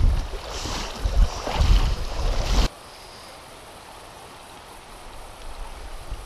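Shallow river water rushing with heavy wind buffeting on the microphone. This cuts off suddenly about two and a half seconds in, leaving only the steady, quieter hiss of the flowing stream.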